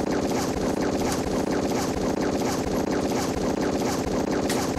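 Dubbed-in battle gunfire: rapid shots over a steady rumble, dense and loud, cutting off abruptly near the end.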